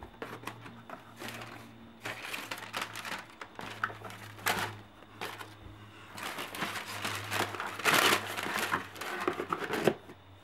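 Tissue paper in a cardboard shoebox crinkling as it is handled, with the lid being lifted and set down: irregular rustles and light knocks, loudest about eight seconds in.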